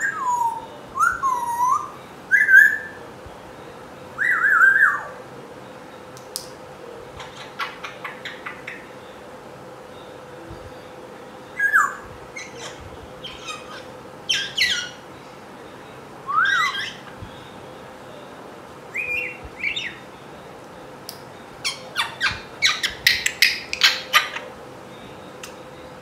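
A young African grey parrot calling in short bursts: whistles that slide down and up in pitch, squawks and clicks, with a quick run of sharp clicking chirps near the end. The bird is seven months old, and these are its early attempts at talking.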